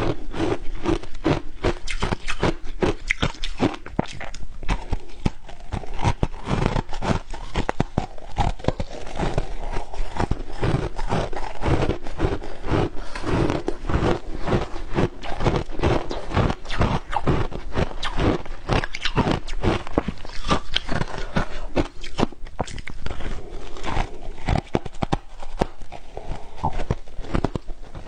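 Close-up crunching of crushed ice dusted with matcha powder being bitten and chewed, a dense run of rapid crisp crunches, mixed with a spoon scraping through the ice.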